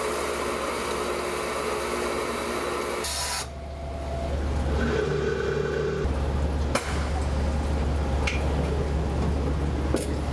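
Wilson Tool XSharp punch grinder running its grinding cycle with coolant spraying inside the enclosure. About three seconds in the spray and grinding noise stop, leaving a low machine hum with a few clicks as the cycle ends and the enclosure opens.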